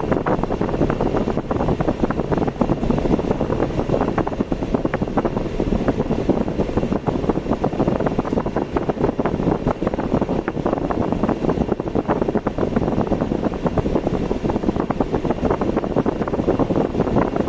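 Steady rushing noise of a car driving on the road, tyre and wind noise with a constant fine crackle and no change across the stretch.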